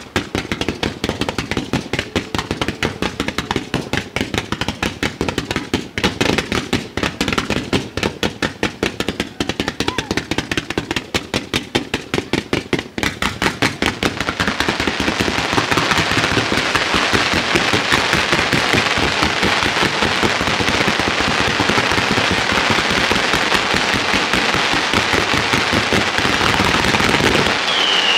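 Fireworks fired from the ground: a rapid string of sharp bangs, several a second, changes about halfway through into a dense, unbroken crackle of a barrage that grows louder. A falling whistle starts near the end.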